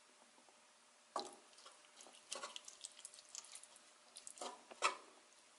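Utensil stirring ground-beef sauce through spaghetti in a pot: wet squelches and light clicks against the pot, starting about a second in, with the sharpest one near the end.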